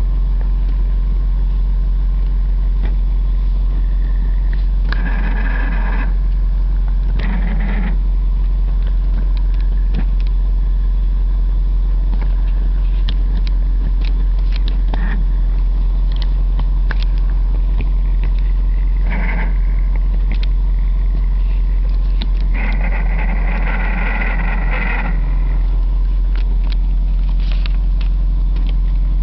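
Car running with a steady low drone, several short bursts of rougher noise and scattered clicks over it; the owner takes it for a weird sound from the transmission. The longest burst comes near the end.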